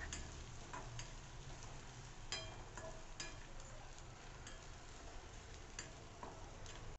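Metal spoon clinking and scraping against a metal kadhai, about a dozen irregular clinks, as crushed dry coconut and garlic are stirred in hot oil, with a faint sizzle underneath.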